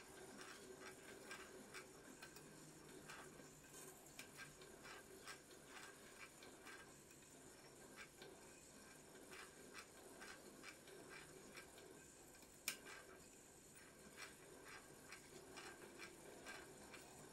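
Near silence: faint room tone with a light, scattered ticking and clicking, and one sharper click about twelve and a half seconds in.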